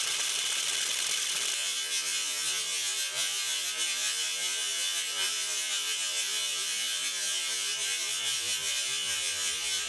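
Moultrie directional feeder's spinner motor running a timed test feed cycle at its high speed setting, a steady electric whirr.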